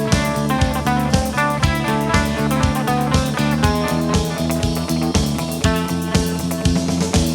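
Live rock band playing an instrumental passage: electric guitars over bass and a steady drum beat, with no vocals.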